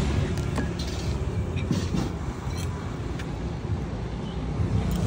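Steady low rumble of a motor vehicle engine from road traffic, with a few light clicks near the start.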